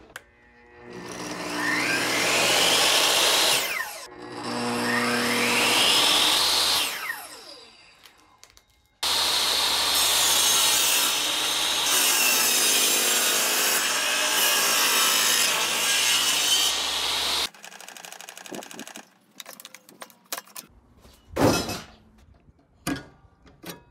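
Einhell TE-CC 250 UF jobsite table saw switched on twice, each time whining up in pitch to speed and winding down a few seconds later. From about nine seconds in the blade cuts a pine board for about eight seconds, then scattered knocks of the wood being handled, with one loud thump near the end.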